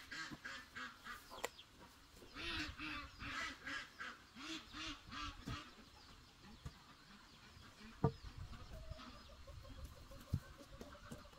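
Domestic ducks quacking in a run of short calls, about two or three a second, for roughly the first half. Later come a couple of sharp knocks, bamboo poles being set down.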